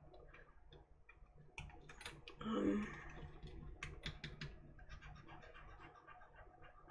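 Faint, irregular clicking of computer keyboard keys and mouse buttons, with a short low hum about two and a half seconds in.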